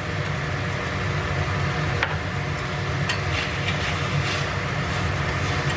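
Vegetables sizzling steadily in a stainless steel frying pan over a steady low hum from the induction cooktop, with a few light clicks as wooden chopsticks stir the pan.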